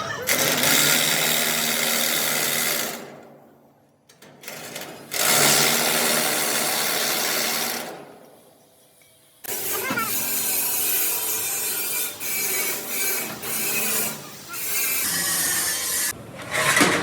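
Power tool working steel in a workshop, in three long passes with short pauses between them.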